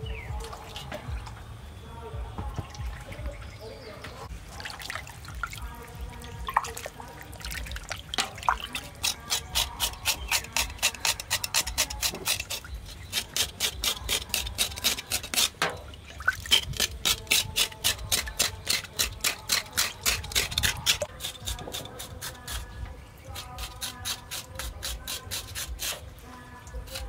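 A knife blade scraping the singed, charred skin of a pork leg in quick, regular strokes, several a second, through the middle of the stretch, with water dripping and splashing in a metal basin.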